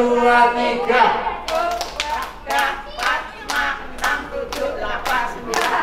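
A voice holds a sung note, then from about a second and a half in, hands clap in a steady rhythm, about two claps a second, with voices between the claps.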